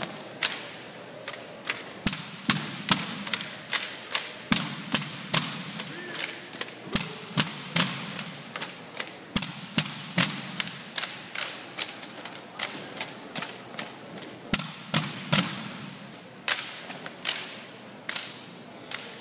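Armed drill team marching with rifles on a hard arena floor: sharp stomps and rifle slaps in cadence, roughly two to three a second, each echoing in the large hall.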